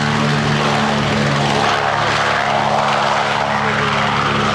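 Consolidated PBY Catalina's twin radial engines running as it rolls along the runway: a steady low drone with propeller rush over it.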